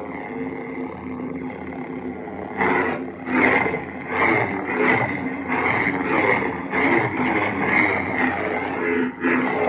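Lightsaber sound-board hum from a CFX board through a 28mm dark side speaker: a steady pitched drone with repeated swells as the saber is swung, about once a second from a few seconds in.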